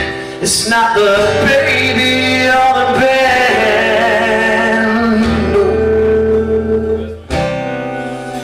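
Live rock band playing: strummed acoustic guitar over electric guitar, bass and drums, with a man singing long held notes. The music drops briefly near the end before the band comes back in.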